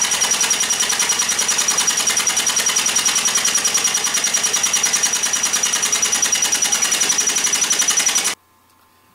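Honda 3.0-litre V6 engine running with the number 3 spark plug removed: loud, rapid, even puffing of gas through the open spark plug hole, blowing out the shavings left from tapping the new threads. It cuts off abruptly near the end.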